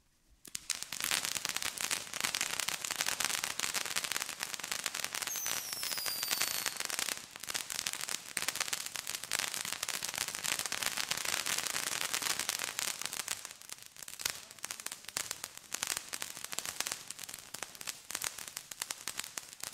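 Ground firework fountain crackling: a dense, hissing crackle starts about half a second in and thins to sparser pops after about 13 seconds. A short falling whistle sounds about five seconds in.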